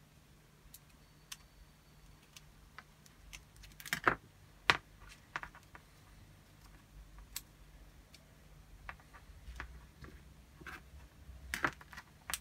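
Small screws being driven by hand into an R2-D2 utility arm's hinge with a small screwdriver: scattered light clicks and taps of the tool and parts being handled. The loudest are two sharp clicks about four seconds in and another cluster near the end.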